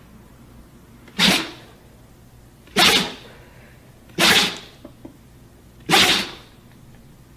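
Dog sneezing four times in a row, sharp short sneezes about a second and a half apart.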